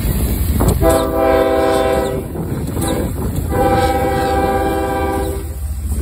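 Union Pacific diesel locomotive's multi-note air horn sounding two long blasts, the second a little longer, over the low rumble of the passing locomotive.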